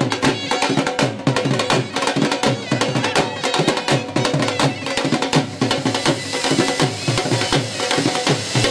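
Music with fast, steady drumming, several beats a second, and a few held tones underneath.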